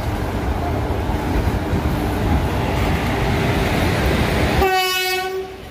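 Passenger train rolling through a station, its wheels and coaches rumbling and clattering loudly on the track. Near the end the rumble drops away abruptly and a single horn blast of about a second sounds.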